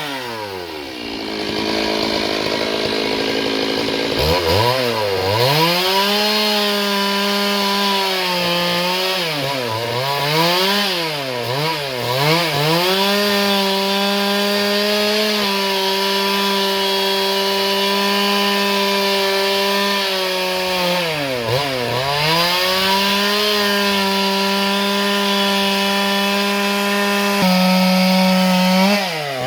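Stihl MS 382 two-stroke chainsaw cutting dry eucalyptus, running at high revs and sagging in pitch under load, then recovering, several times. Its speed falls almost to idle about a second in, picks back up, and steps higher near the end.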